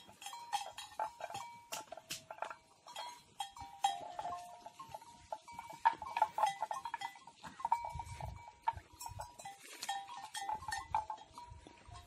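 Neck bells on browsing mithun clanking irregularly: several bell tones ring and overlap as the animals move, struck again and again with sharp clicks.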